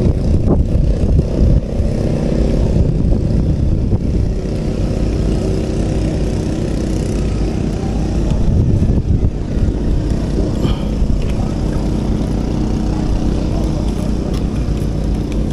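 An engine running steadily at a constant speed, a low even drone.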